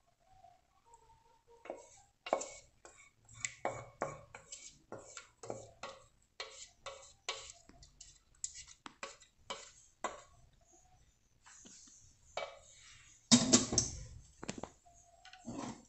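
A wooden spoon scrapes and knocks against a stainless steel pot as thick chocolate cream is poured out into a glass dish, making a run of irregular clicks and taps. About thirteen seconds in there is a louder clatter.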